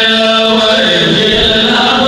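Men's voices chanting a Pashto noha, a Shia lament, together into microphones. They hold a long sung note whose pitch drops about a second in.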